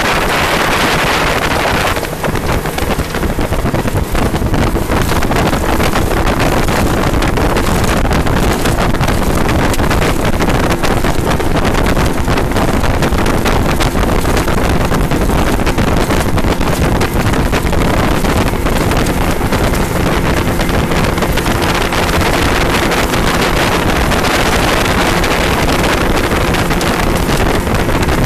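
Small fishing boat's outboard motor running steadily under way, with heavy wind buffeting the microphone.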